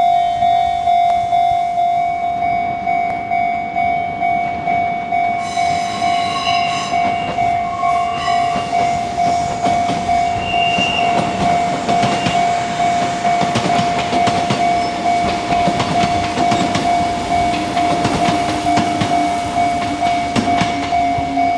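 Japanese level-crossing bell ringing steadily at about two strikes a second while a Kintetsu electric train passes. A horn sounds in two blasts about six to eight seconds in, then wheels clatter over the rail joints, and near the end a motor whine falls slowly in pitch.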